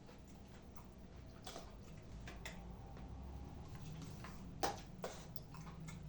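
A few scattered light clicks and taps over faint room noise, with one sharper click a little past halfway.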